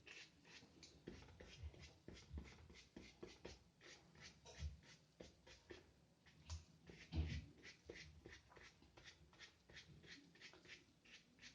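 Faint, quick brush strokes on paper, about three a second, as a nearly dry brush with black gouache flicks short fur strokes, with a few heavier knocks of the brush against the paper.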